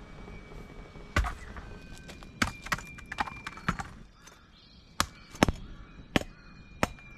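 A machete chopping into a green coconut's husk: a series of sharp, irregular knocks, about nine in all.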